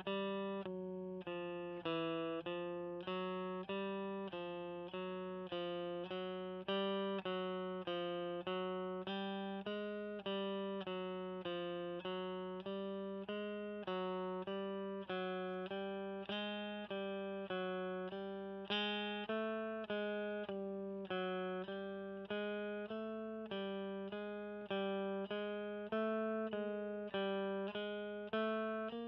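Telecaster-style electric guitar played through a Fender Blues Junior IV amp: single picked notes, about two a second, stepping up and down the strings in a repeating fingering-exercise pattern.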